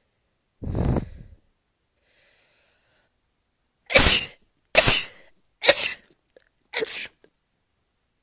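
A person sneezing in a rapid fit: a lower, muffled burst about half a second in, then four sharp, loud sneezes about a second apart starting around four seconds in.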